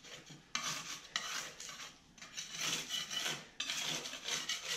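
A putty knife scraping and prying soaked, crumbling drywall out of the bottom of a wall corner. The scraping comes in several rough strokes with short pauses between them.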